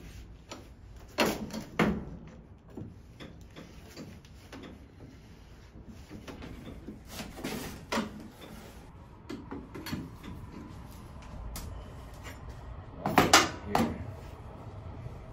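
Steel pry bar working at the drawer of a Fire King fireproof file cabinet: scattered metal knocks, clanks and scrapes, with the loudest cluster of knocks near the end.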